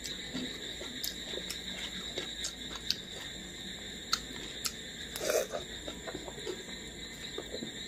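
Fingers squishing rice and dal on a plate, then eating by hand: small wet squelches and clicks, with a louder mouthful about five seconds in, followed by chewing.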